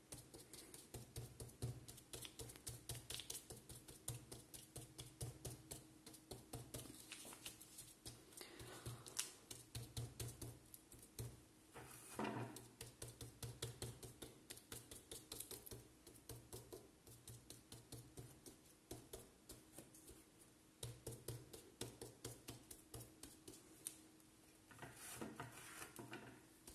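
Kitchen dish sponge, scouring side down, dabbed with paint over and over onto thin paper on a wooden table. It makes a quick run of faint soft pats, about three a second, with a few short pauses.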